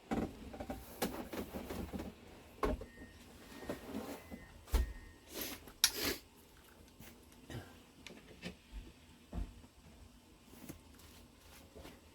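Irregular knocks, clicks and rustling of handling noise, the sharpest click about six seconds in.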